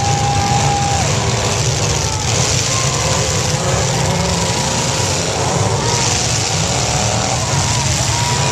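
Demolition derby cars' engines running and revving together, loud and continuous, with pitches sliding up and down.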